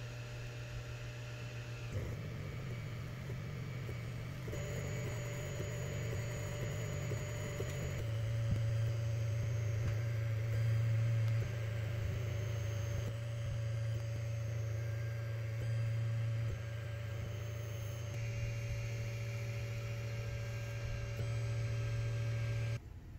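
Sculpfun S9 diode laser engraver at work: a steady hum from its module cooling fan and motion motors, changing abruptly in pitch and level several times.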